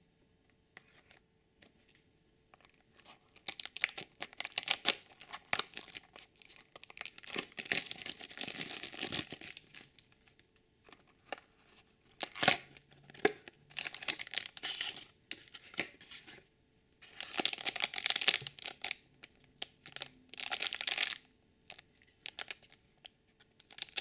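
Thin plastic packaging of a toy blind basket and the small blind bags inside it being torn open and crinkled by hand. There are three spells of crackling, with short pauses between them.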